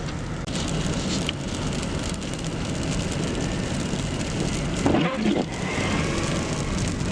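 Car driving through snow and slush: steady engine rumble and tyre noise with a crackling hiss of wet snow under the tyres, and a brief louder sound about five seconds in.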